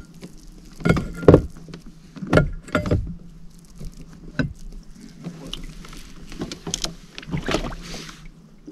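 Someone moving about in a kayak: several short knocks and bumps over a steady low hum.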